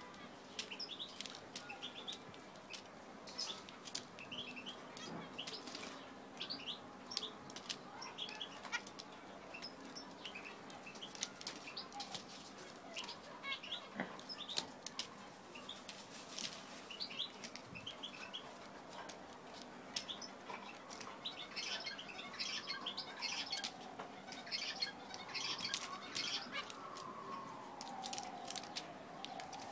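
Zebra finches calling in many short, high chirps amid brief fluttering of wings. From about two-thirds of the way through, a siren wails slowly up and down in the background.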